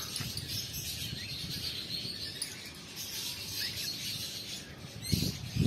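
A flock of small parrots chirping together: a steady high twittering with a few sharper chirps about halfway through.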